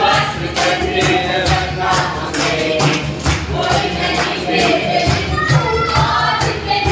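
A group singing a Hindi Christian worship song together with a strummed acoustic guitar, and hand-clapping on the beat.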